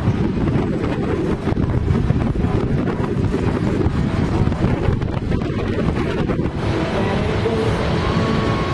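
Wind buffeting the camera microphone on an open chairlift chair: a steady, rumbling rush of noise.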